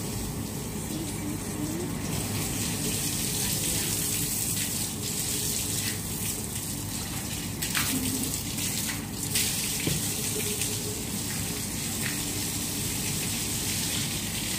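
Water running steadily, with a couple of short knocks about eight and nine seconds in.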